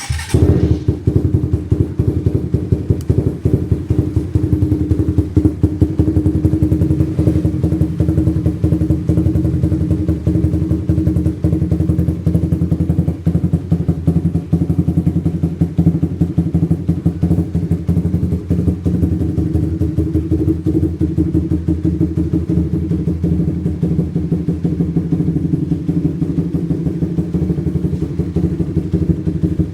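Suzuki Raider R150 FI's single-cylinder four-stroke engine, breathing through an open aftermarket exhaust, starts right at the beginning and settles into a steady, loud, rapid-pulsing idle.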